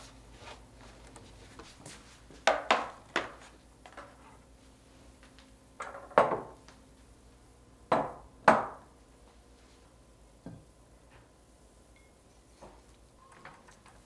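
Ceramic bowls and dishes being set down on a wooden dining table: a series of sharp clacks, mostly in close pairs. A few fainter knocks and scrapes near the end, as a wooden paddle stirs rice in a stone pot.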